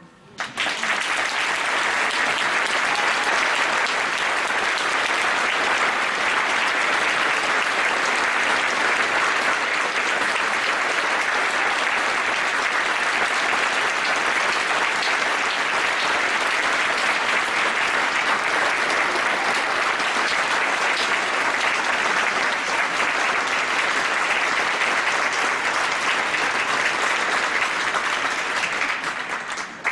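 Audience applauding steadily; it starts about half a second in and dies away near the end.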